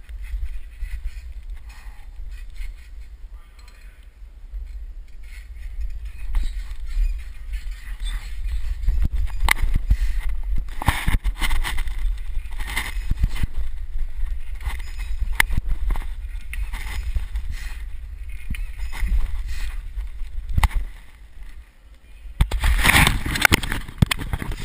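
Wind rushing over a body-worn GoPro's microphone as a gymnast swings round a high bar, with repeated clicks and knocks from the grips and bar. A sharp thump about 20 seconds in, then loud scraping of the camera being handled near the end.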